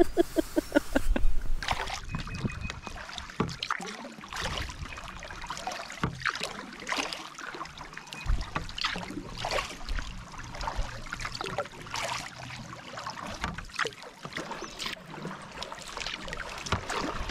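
Canoe paddle strokes: irregular splashes as the blades dip into the river water, with water trickling and dripping off the paddle between strokes.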